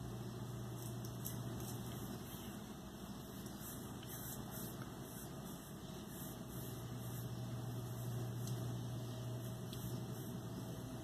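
Steady low hum with a faint hiss above it: background room noise while the phone is silent.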